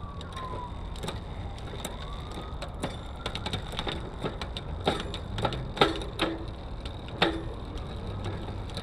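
Scattered light clicks and knocks from a bicycle being handled and worked on by hand, with a few sharper knocks in the second half.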